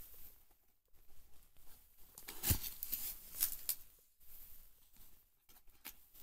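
Cardboard box being handled and opened by hand: the tuck flap is pulled open with papery scraping and rustling, a sharp thump about two and a half seconds in, and a few smaller clicks after it.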